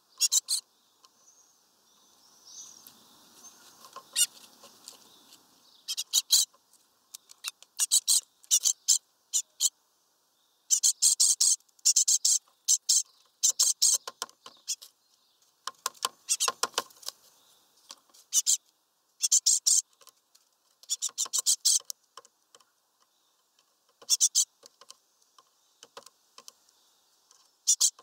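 Great tit pecking at the wooden perch with its bill: sharp, dry taps in quick runs of several, separated by pauses of about a second.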